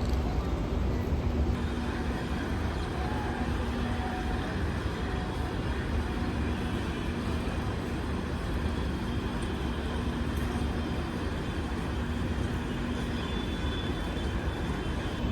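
Train running with a steady low rumble, a faint steady hum coming and going over it.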